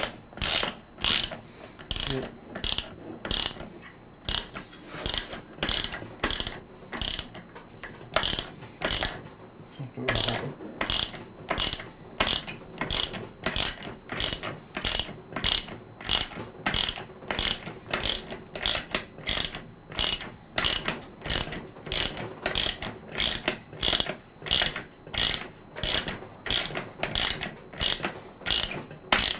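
Ratchet wrench clicking as it turns the gland nut of an air-cooled VW Type 1 engine, drawing a washer-type installer tool that presses the rear main seal into the engine case. The clicks come in a steady rhythm of about three every two seconds, with a short pause about a third of the way in.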